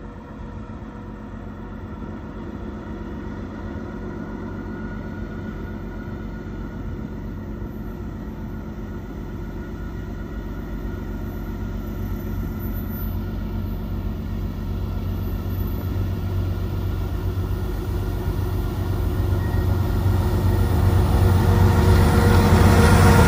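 Diesel freight locomotives approaching with a steady low engine drone that grows louder throughout.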